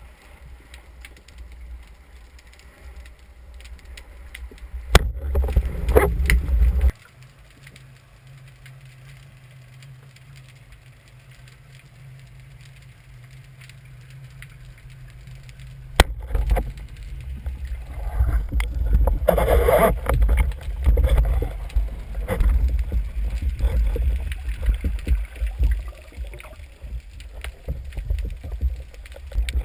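Underwater water noise on a diver's camera: a low rumble and sloshing of moving water. There is a sharp click about five seconds in and another about sixteen seconds in, each followed by louder stretches of rushing water, and a steady low hum in between.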